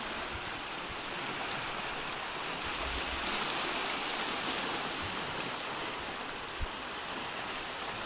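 Sea surf washing onto a stony beach: a steady rush of water that swells a little in the middle and eases off later, with one brief low knock about six and a half seconds in.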